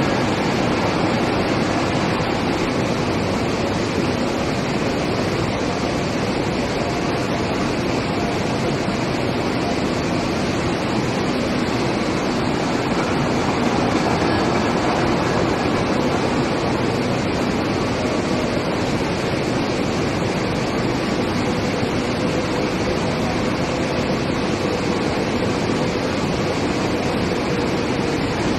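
Steady industrial noise from a steel plate induction reheating line running, an even rushing din with no breaks. A faint steady hum joins in about two-thirds of the way through.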